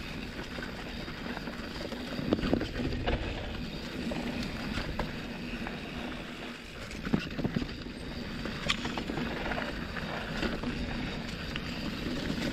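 Canyon Torque full-suspension mountain bike rolling fast down a dirt forest trail: a steady rushing of tyres and air, broken by sharp clunks and rattles as the bike hits bumps, loudest a little over two seconds in and around seven seconds in.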